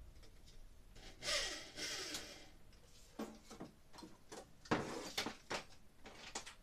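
Handling noise from someone working overhead and stepping down: rubbing and scraping about a second in, then a scattered run of light knocks and clicks, the loudest knock just before five seconds.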